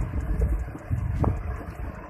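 Low rumble of a moving vehicle on the road, mixed with wind buffeting the microphone, with one brief faint tone a little past a second in.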